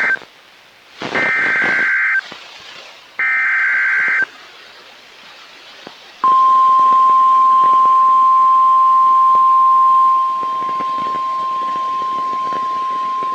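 NOAA Weather Radio emergency alert: the end of one SAME data burst, then two more, each about a second of shrill warbling digital tones a second apart. About six seconds in, the steady single-pitch 1050 Hz warning alarm tone starts and holds, the signal that a warning, here a tornado warning, is about to be read.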